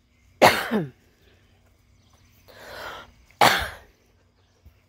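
A person coughing twice, each a short harsh burst, with a breath drawn in just before the second cough.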